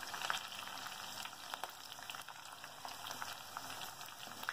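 Chopped garlic sizzling as it fries in hot oil with green chillies and curry leaves in a clay pot: a steady hiss with scattered light crackles.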